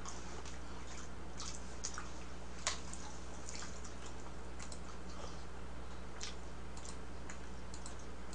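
Scattered soft clicks of a computer mouse, a few seconds apart at irregular intervals, over a steady low hum.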